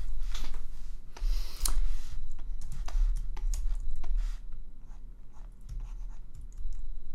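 Pen stylus scratching and tapping on a graphics tablet in a run of short, irregular strokes with a few clicks, over a low electrical hum.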